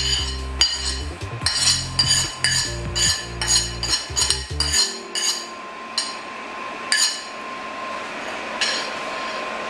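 Metal spoon tapping and scraping on a plate, knocking ground crayfish and chopped pepper off it. Quick clinks come about two a second for the first few seconds, then only a few scattered clinks.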